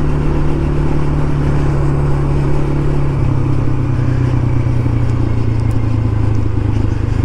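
Quad's engine running at a steady cruise, its note dropping to a lower pitch about three seconds in, over road and wind noise.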